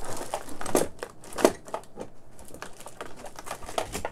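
Irregular light clicks and knocks of hard objects being handled on a workbench, the loudest about a second and a half in.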